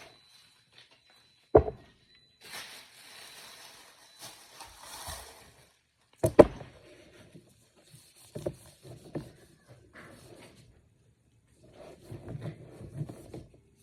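Groceries being handled and set down on a counter: two sharp knocks, about a second and a half in and about six seconds in, with softer knocks and clatter between them.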